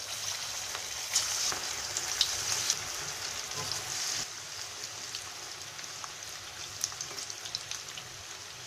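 Punugulu (balls of idli-dosa batter) deep-frying in hot oil in a kadai: a steady sizzle with scattered crackles and pops. The sizzle starts suddenly as the first batter drops in and eases a little about four seconds in.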